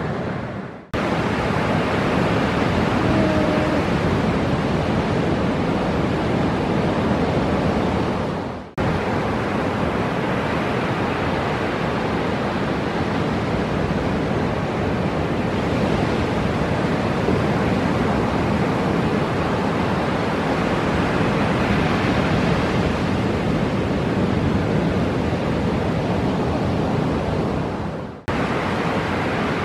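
Steady roar of ocean surf and breaking whitewater. It fades out briefly three times, about one, nine and twenty-eight seconds in.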